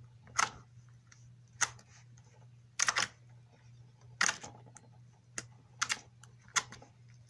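Pink glossy slime squeezed and pressed between the fingers, making a string of sharp pops and clicks about once a second.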